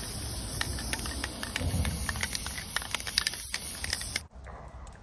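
Aerosol spray-paint can hissing steadily as red paint is sprayed, with scattered light ticks; the hiss cuts off abruptly about four seconds in.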